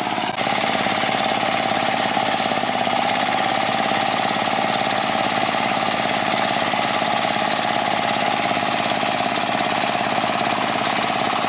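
Chinese D30 single-cylinder diesel engine running steadily under load, driving the rotary cutter of a ditch-digging machine through paddy mud.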